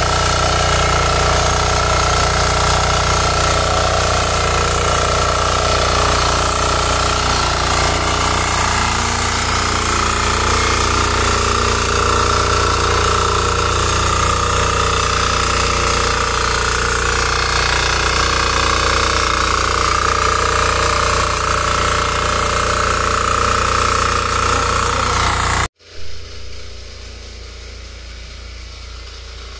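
KisanKraft 350D mini power tiller running steadily under load with a fast, even beat as its rotary tines churn soil. The sound cuts off abruptly near the end, leaving a much quieter low hum.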